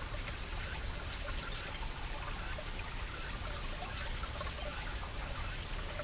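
Mountain stream flowing over rocks, a steady rushing water noise, with cicadas. A bird gives a short whistled note twice, about three seconds apart.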